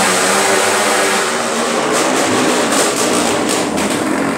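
Loud, steady din of a crowded night market, with music and a running motor in the mix and a few sharp knocks near the middle.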